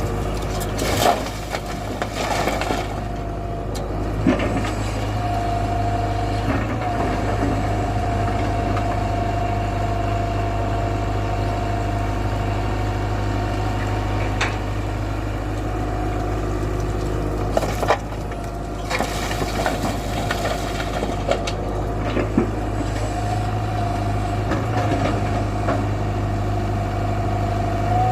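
Tata Hitachi 120 excavator's diesel engine running steadily, with a higher steady whine that comes in about five seconds in and again near the end, and scattered knocks.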